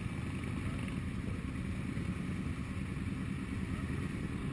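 Many motorcycle engines running together in a slow-moving group ride, a steady low drone with engine notes faintly rising and falling.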